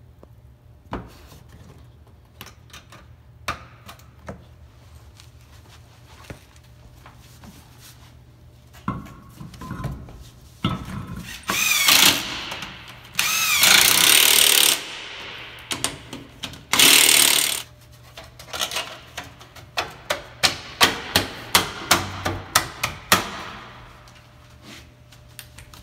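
Power tool driving fasteners in three short bursts, its motor whine wavering, then a quick run of sharp clicks about three a second. Light knocks come before the bursts.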